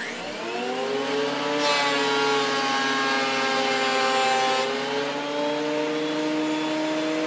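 Benchtop thickness planer with freshly hand-sharpened knives: the motor starts and winds up to a steady whine. From about a second and a half in until about four and a half seconds, a board feeds through and the knives cut, adding a hiss while the motor's pitch sags slightly. Then it runs free again.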